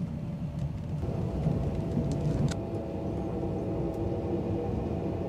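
Steady low rumble of a sleeper express passenger coach running on rails, heard from inside. About a second in it changes to a steadier hum with a few faint held tones as the train rolls slowly into a station.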